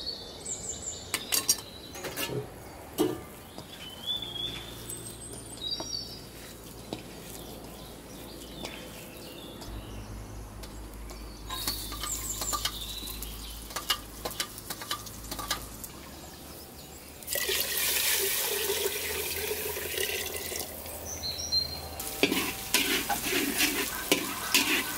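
Chopped onion, garlic and chili sautéing in hot oil: a loud steady sizzle starts about two-thirds of the way in, then turns to crackling frying with a metal spatula scraping and stirring in a wok near the end. Before that there are only light clicks and a few short high chirps.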